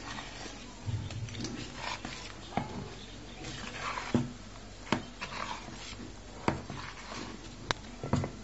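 Hand whisk stirring thick chocolate cake batter in a bowl: a soft swishing, broken by several sharp clicks as the whisk knocks against the side of the bowl.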